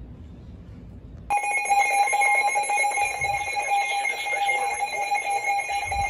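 Faint low background noise, then a little over a second in a weather radio alert tone starts suddenly and holds steady and loud. It marks an incoming NOAA Weather Radio Special Marine Warning.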